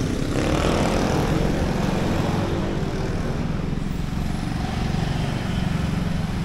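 Street traffic, with motor vehicle engines running close by as a steady low rumble.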